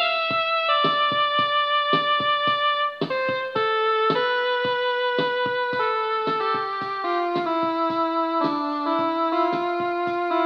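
Electronic home keyboard playing a slow melody of long held notes that step downward in pitch, over a steady accompaniment beat.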